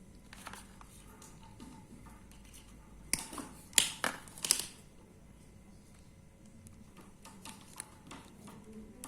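Crimping pliers clicking and snapping as they are worked on a solid-core electrical cable, in a cluster of sharp clicks about three to four and a half seconds in, with fainter clicks later.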